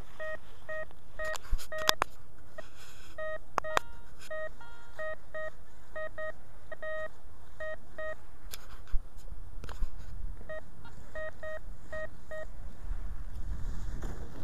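Hand-held metal detector beeping in short, repeated same-pitch tones as its coil sweeps the ground, each beep signalling metal under the coil. The beeps come in quick irregular runs and stop about twelve seconds in, with a few sharp clicks among them.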